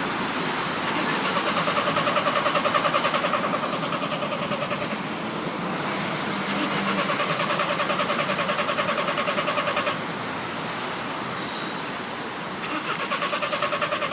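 VW Transporter's starter motor cranking the engine in three separate attempts with short pauses between, each a fast, even churning, and the engine never catches: it won't restart.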